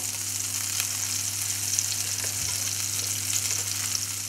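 Whiting fillets shallow frying skin side down in hot oil in a frying pan: a steady sizzle with small crackles, over a faint low hum.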